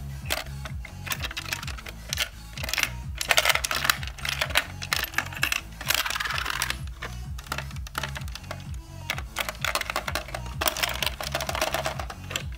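Coins rattling and clinking inside a small plastic coin bank as it is tipped and turned in the hands, with sharp clicks of plastic handling, over background music with a steady bass line.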